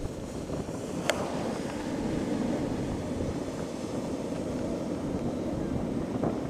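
Wind on the microphone: a steady low rumble, with one sharp click about a second in.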